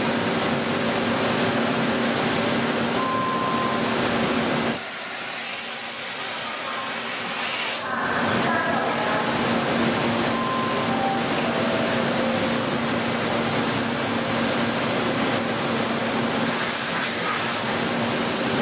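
DMG Mori Seiki 11-axis mill-turn machining center running with a steady mechanical hum. About five seconds in, a loud hissing spray cuts in for about three seconds, followed by a string of short tones stepping down in pitch, and a shorter hiss comes again near the end.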